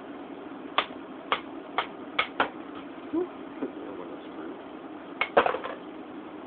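Wooden mallet rapping a bullet-casting mold, five quick sharp knocks in a row, then a couple more about five seconds in, knocking off the sprue and freeing the freshly cast lead pellets. A steady low hum runs underneath.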